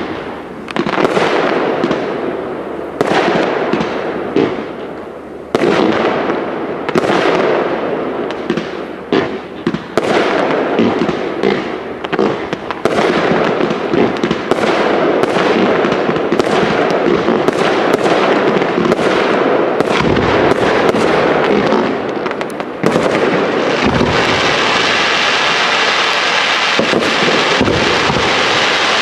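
Professional aerial fireworks display: a rapid, irregular series of shell bursts, each bang trailing off in an echo. About two-thirds of the way through it turns into a dense, continuous crackle from many small bursting stars.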